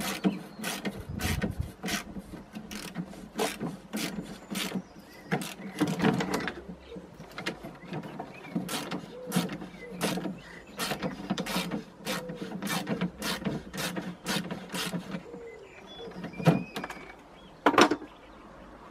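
A run of irregular sharp metal clicks and knocks, a few a second, from hand tools working on the old Flymo hover mower's metal frame as it is taken apart; the sound stops shortly before the end.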